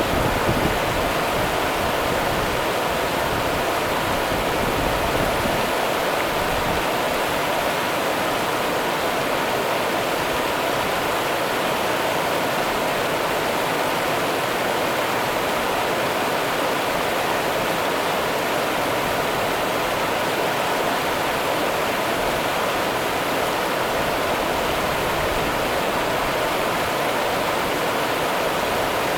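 The Rio Grande running: a steady, even rush of flowing river water.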